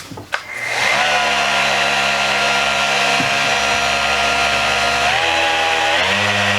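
RIDGID 6-inch 4 amp variable-speed random orbit sander switched on with a click and running with a steady motor whine. Its pitch shifts about five seconds in and again about a second later.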